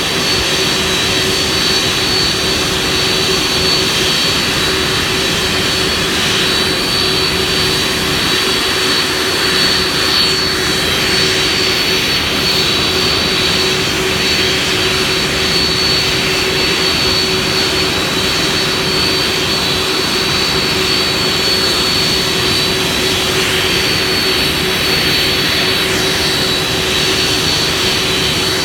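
Boeing 767's twin jet engines idling as the airliner taxis, a loud, steady whine with a thin high tone over a lower hum.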